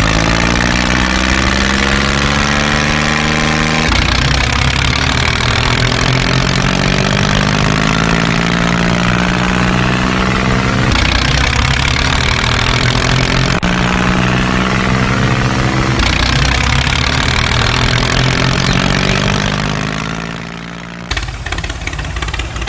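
Tractor engine running and labouring, its pitch swelling and falling, with abrupt changes every few seconds. Near the end it dies down, then picks up again as a rough, rapidly knocking idle.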